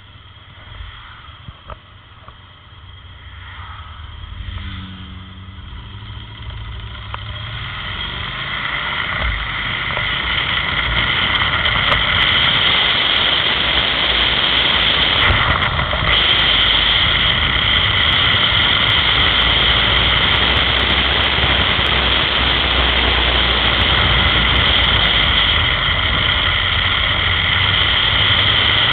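Motorcycle ridden along a winding road: engine and wind rush swell as it gathers speed over the first ten seconds, then hold steady and loud.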